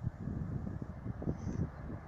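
Wind buffeting the microphone in irregular gusts, with a few faint, short, high chirps.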